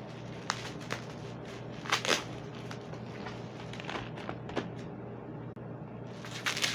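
Plastic bubble wrap and a bubble mailer crinkling and crackling as they are pulled open by hand, in irregular sharp crackles that are loudest about two seconds in and again near the end.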